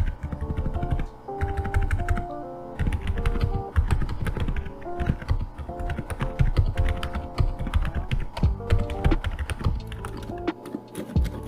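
Rapid, continuous typing on a mechanical keyboard fitted with Gazzew Boba U4 silent tactile switches: dense, irregular muted keystrokes, over background music.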